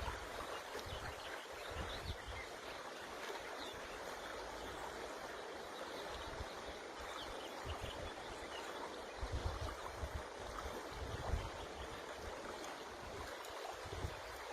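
A river flowing steadily with an even rushing sound, with occasional low rumbles of wind on the microphone.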